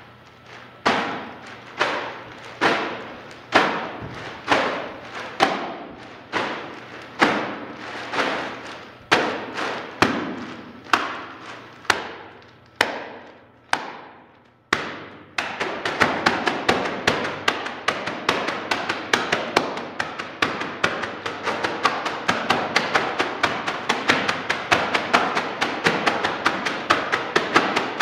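Evenly spaced heavy thuds, about one a second, each ringing out. About fifteen seconds in they stop and give way to a fast, dense run of taps, several a second.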